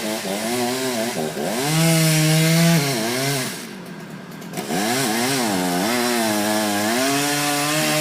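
Old Husqvarna two-stroke chainsaw revving up and down while felling a tree: held at high revs about two seconds in, dropping back to idle around the middle, then opened up again and held high near the end.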